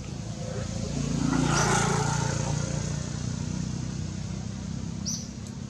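A motor vehicle's engine passing by, swelling to its loudest about two seconds in and then fading away, with a short high chirp near the end.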